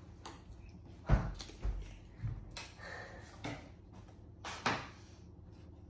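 A few scattered knocks and thumps, about five in all, from handling paper and scissors on a hard glass tabletop. The first, about a second in, is the loudest, with a short stretch of paper rustling between them.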